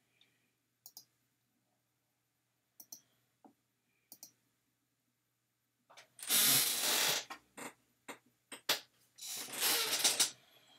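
Computer mouse clicks, several as quick press-and-release pairs, spaced a second or more apart. About six seconds in and again about nine seconds in come two loud rushes of noise, each roughly a second long; these are the loudest sounds.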